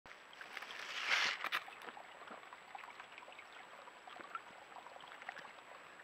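A small waterfall trickling into a rock pool, with many faint drips and ticks over the steady flow. A louder scuff comes about a second in as the deer moves in close.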